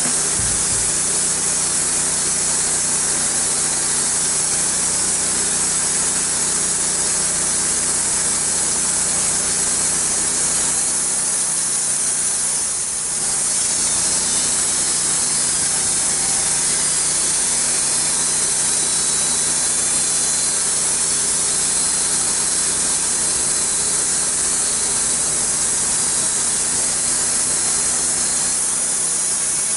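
Wood-Mizer LX150 bandsaw mill sawing through a cherry log: the band blade cutting the wood steadily over the mill's engine running under load. The level dips briefly about halfway through.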